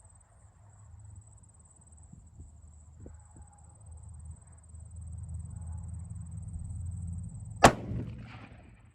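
A single shot from a Remington 700 rifle in .30-06 near the end, with a short rolling echo after the report. A low rumble builds in the seconds before the shot.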